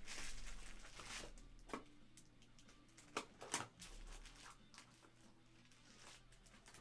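Faint rustling in the first second, then low room tone broken by a few light clicks and knocks.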